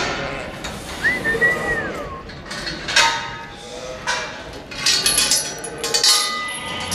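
Auction mart pens: sharp metallic clanks and knocks, with a short whistle that rises and then falls about a second in, over background voices.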